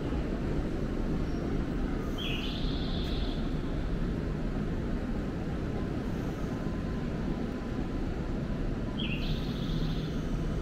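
Steady rumble of a railway station platform under a canopy, with a low hum. A short high chirp sounds twice, about six seconds apart.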